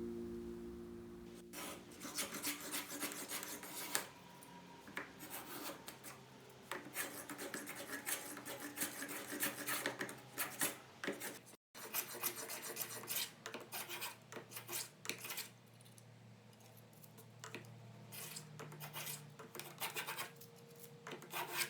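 Hand tool scraping across wood in quick repeated strokes, in several runs with short pauses between.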